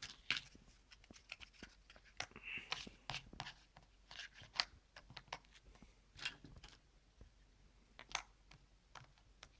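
Faint, irregular taps, clicks and rustles of cardboard jigsaw puzzle pieces being handled and pressed into place.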